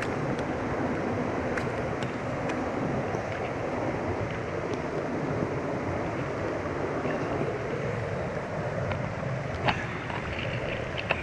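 Steady rush of a mountain stream's flowing water, with a few faint small ticks and knocks.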